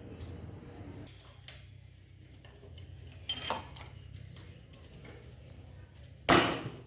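Metal tools and motorcycle engine parts clinking and knocking as they are handled, with a louder metallic clatter near the end. A low steady hum drops away about a second in.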